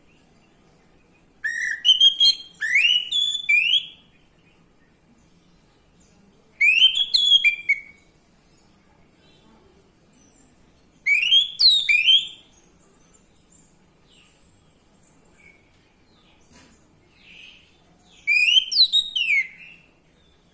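Male orange-headed thrush (anis merah) singing four short, loud phrases of rapid, high whistled notes that sweep up and down, a few seconds apart, with a few soft notes in between.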